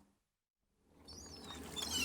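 Silence for about the first second, then beach ambience with surf fades back in, and seagulls call twice near the end.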